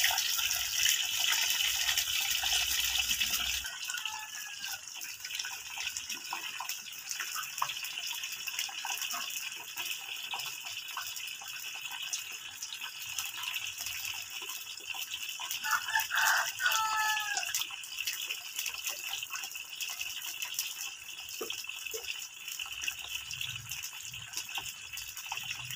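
Kepok banana slices deep-frying in a wok of hot oil: a continuous sizzle full of small crackles. It is louder for the first few seconds, then settles to a steadier, softer sizzle.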